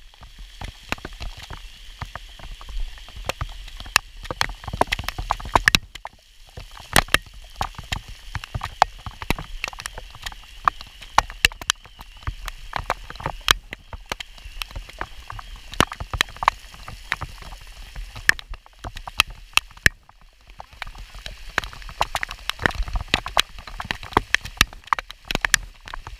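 Rain striking the camera: dense, irregular ticks of raindrops hitting the housing over a steady hiss of rainfall on a wet road.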